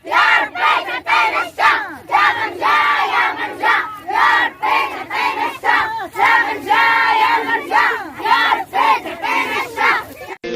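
A crowd of voices chanting loudly together in short repeated phrases: a communal prayer chant asking for rain. The chant breaks off suddenly near the end.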